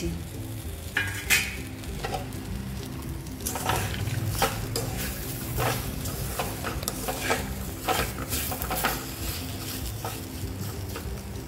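A spatula stirring and scraping semolina with peanuts and cashews in a metal kadai, in irregular strokes about once a second, with a light sizzle underneath.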